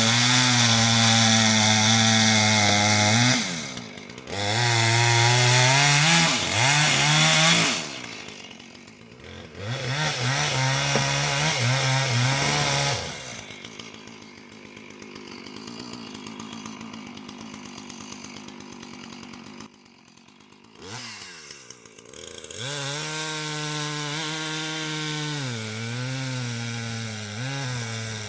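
Two-stroke Husqvarna Rancher chainsaw bucking a downed ash log: revved hard in several long pulls with brief drops in between, then slowing to a quieter idle for a stretch in the middle before revving up again near the end.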